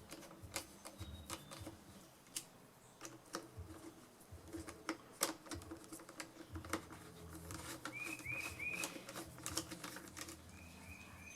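Irregular light clicks and taps of hand work on the blower's plastic housing and carburetor parts, with a few faint short chirps about eight seconds in.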